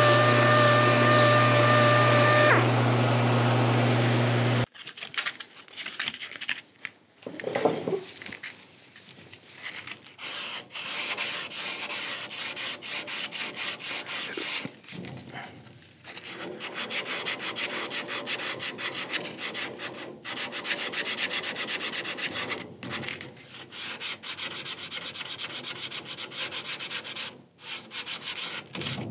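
Air-powered random orbital sander running against a wooden guitar neck with a steady whine, shutting off about four seconds in. Then hand sanding: quick, uneven back-and-forth strokes of sandpaper on the wood, with short pauses.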